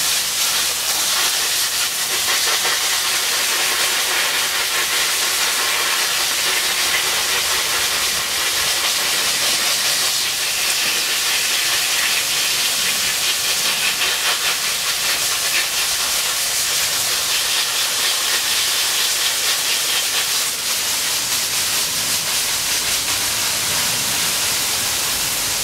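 Garden hose spraying water, a steady hiss.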